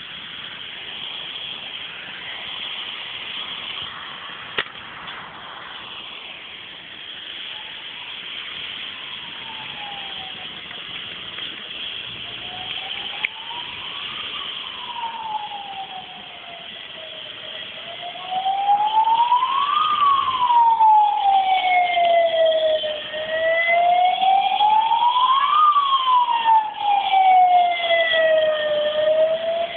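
Emergency vehicle siren wailing, its pitch sliding slowly up and down about every six seconds. It fades in faintly and becomes much louder a little past halfway, over a steady background hiss.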